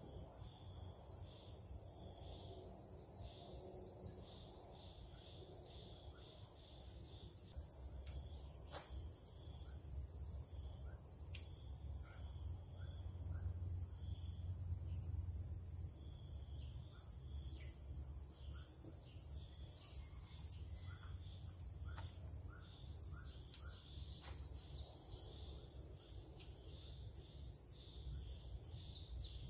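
Steady high-pitched drone of insects, running unbroken throughout.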